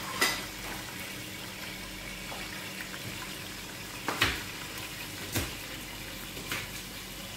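Kitchen cooking noise: a steady hiss from covered pots on a gas stove, broken by a few sharp knocks, the loudest a close pair about four seconds in.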